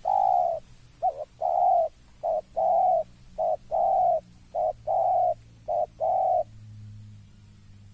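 Spotted dove cooing in repeated phrases, each a short coo followed by a longer one, about five times over, then falling silent near the end. It is a challenge call at a rival dove.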